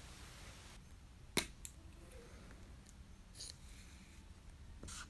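A felt-tip marker on paper: a sharp click about a second and a half in, then two short scratchy marker strokes, one near the middle and one near the end.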